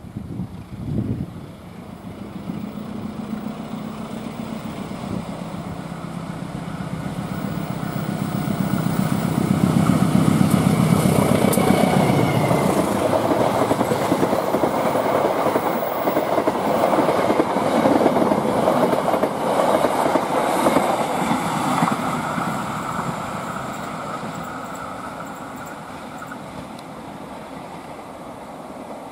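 A diesel locomotive hauling passenger coaches passes at speed. The engine drone builds as it approaches, then the wheels clatter rhythmically over the rails as the coaches go by, and the sound fades as the train moves away.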